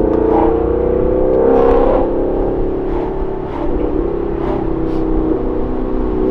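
Ford Mustang GT's 5.0 Coyote V8 with a Corsa Xtreme cat-back exhaust, heard from inside the cabin while driving: a loud, steady drone that rises slightly in pitch over the first couple of seconds, then holds.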